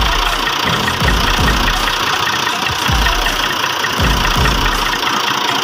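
Farm tractor's diesel engine running steadily as the tractor drives, with a low pulse about once a second.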